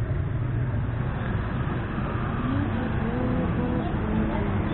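Street traffic: a steady low rumble of motorbike and car engines, with faint rising and falling engine tones in the middle.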